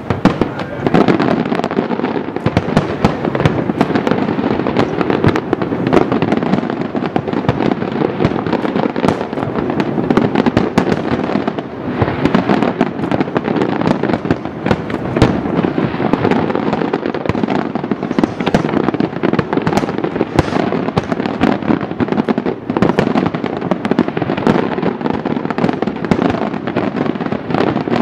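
Aerial fireworks shells bursting in a dense, continuous barrage, booms overlapping one another with crackling between them and no pauses.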